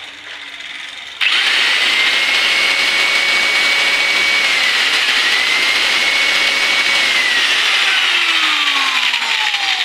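ACTION electric angle grinder switched on about a second in, spinning up to a steady high whine with no disc fitted and dipping briefly in pitch near the middle. Near the end it is switched off and winds down with falling pitch. This is the test run after its broken bearing was replaced.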